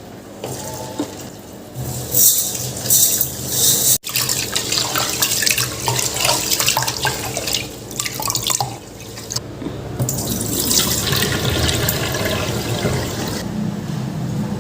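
Water running from a tap and splashing, uneven in strength, with a sharp break about four seconds in.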